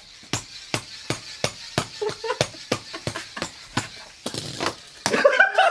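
A quick, even series of sharp knocks or taps, about three a second, followed by loud voices near the end.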